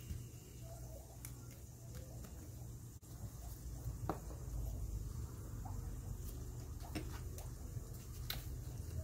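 Quiet rustling and scratching of paper as cut-out paper circles are picked up and pressed onto construction paper, with a few light clicks and taps, over a low steady hum.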